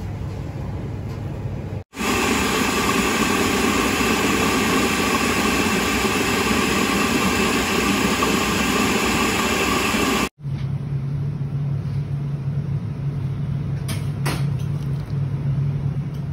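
Electric food processor running steadily as it blends a thin liquid pancake batter, coming in suddenly about two seconds in and cutting off about eight seconds later. Before and after it, a low steady hum with a few light clicks.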